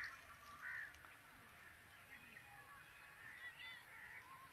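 Near silence with faint, scattered short bird calls in the background.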